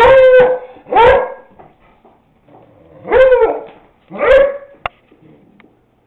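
Beagle barking during rough play with another beagle: four loud barks in two pairs, each pair about a second apart, the second pair coming about three seconds in.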